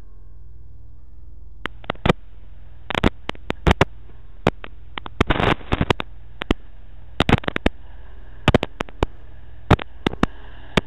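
Irregular sharp crackles and pops in uneven clusters over a steady low hum: the noise of a broken camera microphone.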